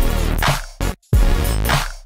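Electronic background music with a heavy beat and deep bass, cutting out briefly about a second in.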